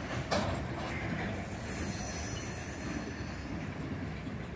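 Freight cars rolling past on the rails, steady wheel-on-rail noise, with one sharp clank about a third of a second in.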